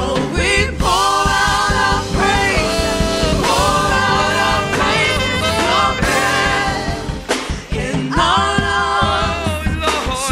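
Gospel worship singers, several voices in harmony, singing a praise song with long held, wavering notes, backed by an electric bass guitar.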